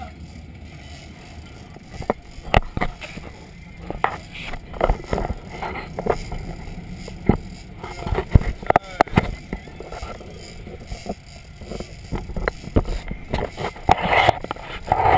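Sportfishing boat under way through choppy sea: a steady low engine rumble and rushing wash, broken by irregular sharp knocks and splashes as the hull meets the waves. There is wind on the microphone, and brief voices near the end.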